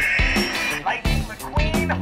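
Background music with a steady, fast beat and a bass line.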